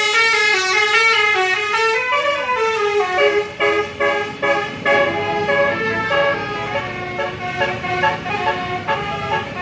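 Basuri 'telolet' multi-note bus horn playing a tune: a quick run of falling notes, then a choppier string of short notes.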